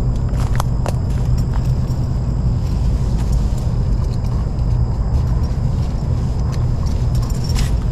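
Steady low rumble of distant traffic, with a thin, steady high-pitched tone above it and a few light clicks.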